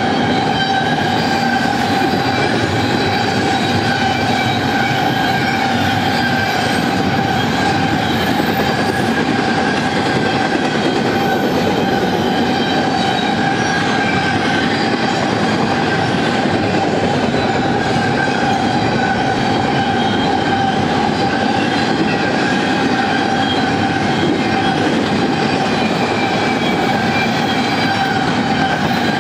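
Freight train of empty intermodal well cars rolling past at speed: a steady, unbroken rumble of steel wheels on rail, with a constant high ringing tone held over it.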